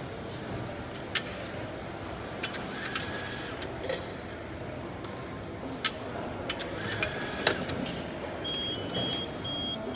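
Japanese station IC-card charge machine taking in banknotes: sharp clicks and clunks from the note slot over a steady background hum. Near the end the machine starts a repeated high beep, two or three short tones a second, prompting the user to take the card once the charge is done.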